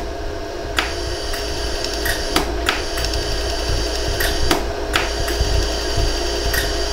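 Pulses of a LaserStar jewelry laser welder striking a hollow gold earring, heard as sharp, irregularly spaced clicks, about eight to ten of them, over the welder's steady hum. The pulses are melting the marked high points of filled pinholes so that the repair flows together into one piece.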